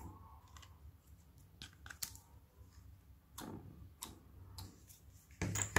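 Glossy slime being lifted and pressed by fingers: scattered sticky clicks and squishes, the loudest near the end.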